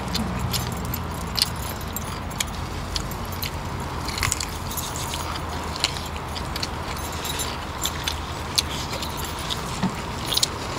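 Scattered light clinks and taps of cutlery and plates, with some chewing, over a steady low rumble.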